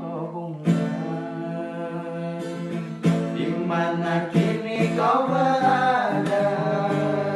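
Acoustic guitar strumming chords, the song's intro before the vocal comes in.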